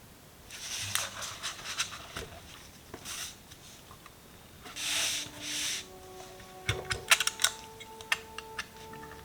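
Hands working on PC case and computer parts: irregular rustling and sliding, with sharp small clicks and taps clustered near the end.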